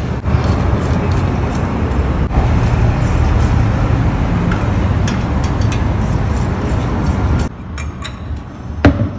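Steady low city-street traffic rumble with a few light knocks. It drops away about seven and a half seconds in, and a single sharp bang comes shortly before the end.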